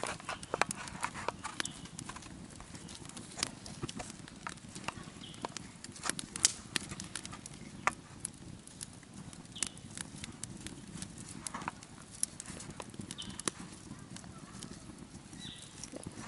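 Small kindling campfire crackling in a steel fire ring: irregular sharp snaps and pops over a low steady rush.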